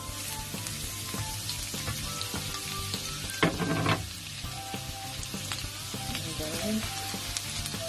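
Minced garlic sizzling in hot oil in a nonstick wok, stirred with a wooden spatula that clicks and scrapes against the pan, with one louder scrape about three and a half seconds in.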